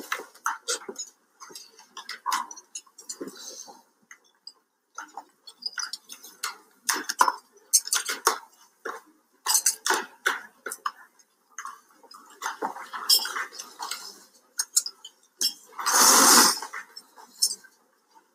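Irregular clatter and clinks of dishes and cutlery, with a few brief murmured voices, in a film's prison scene. One louder, longer burst of noise comes about sixteen seconds in.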